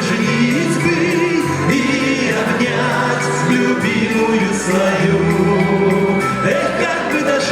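Background music: a band playing an old wartime song, with a singing voice holding wavering notes over a bass line and regular cymbal strikes.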